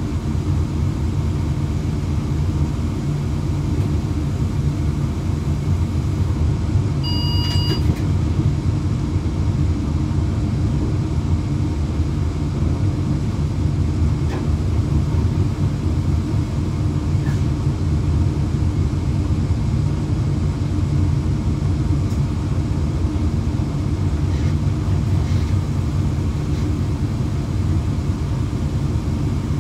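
Steady low rumble of a train running at about 130 km/h, heard from inside the driver's cab. A short electronic beep sounds about seven seconds in, and a few faint clicks come as the wheels run over points.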